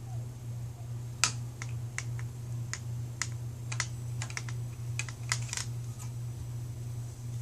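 Irregular sharp clicks and clacks, about fifteen, from the parts of a 2-inch wood blind being handled as a new tilt mechanism is fitted in its headrail. A steady low hum runs underneath.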